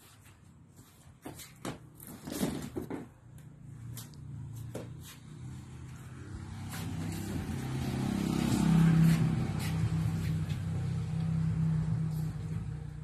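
A low motor hum builds up about halfway through and then holds steady. Earlier come a few sharp knocks and clicks.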